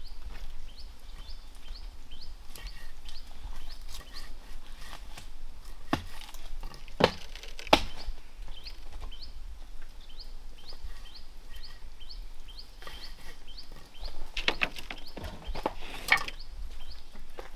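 Footsteps on a forest trail snapping twigs and crunching dry leaves in scattered sharp cracks, with a steady series of short high chirps, about two or three a second, from the surrounding jungle.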